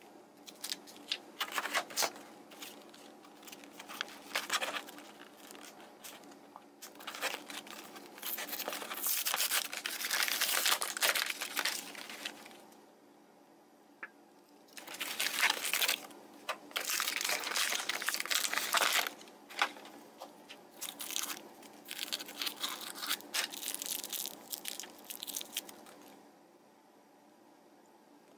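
Plastic toy packaging crinkling and tearing as it is handled and opened by hand, in irregular bursts. The bursts pause briefly about halfway through and stop for the last couple of seconds.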